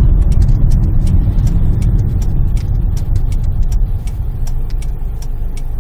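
Steady low rumble of a 2009 Kia Lotze Innovation's engine and road noise heard inside the cabin, easing off a little after about four seconds. Over it comes a light, even ticking about three times a second, the turn-signal relay clicking during a U-turn.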